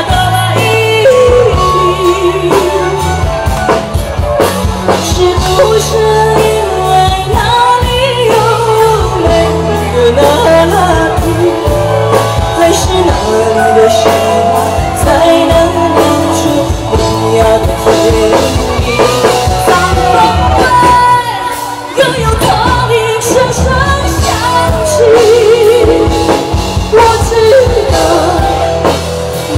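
Live pop song played loud through stage speakers: a woman singing into a microphone with vibrato over a band of drum kit, bass and keyboard.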